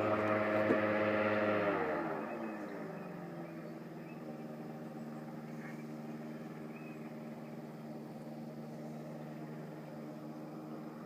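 Airboat engine and propeller running at high revs, then throttled back about two seconds in, the pitch sliding down, and running on steadily at low revs.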